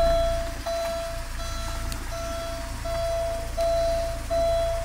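A car's interior warning chime sounding in a steady repeating pulse, about one and a half beeps a second, over a low steady rumble.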